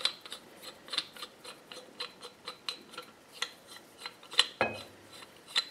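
South Bend 13-inch lathe tailstock screw being unscrewed by hand from its worn nut, the metal threads giving a string of light, irregular clicks, a few a second.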